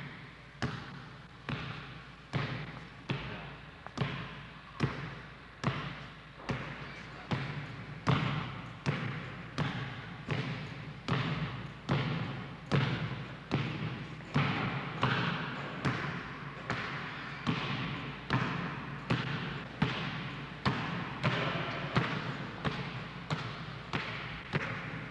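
A basketball being dribbled on a gym floor: a steady bounce a little more than once a second, each bounce echoing in the hall.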